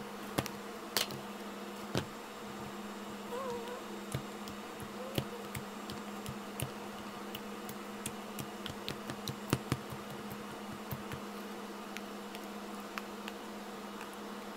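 Slime being poked and squished in a plastic container, the lid pulled off first: scattered small clicks and pops from the plastic and the slime, over a steady background hum.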